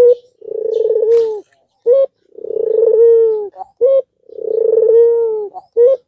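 Albino ringneck dove (puter) cooing: three long rolling coos of about a second each, roughly two seconds apart, with one or two short clipped notes between them.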